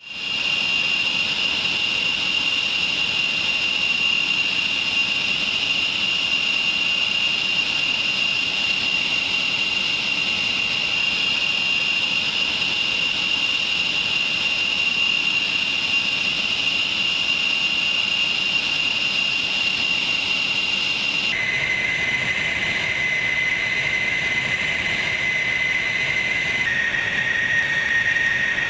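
A-10 Thunderbolt II jets' TF34 turbofan engines running on the ground, giving a steady high-pitched whine over a jet rush. The whine steps down in pitch twice, about two-thirds of the way through and again near the end.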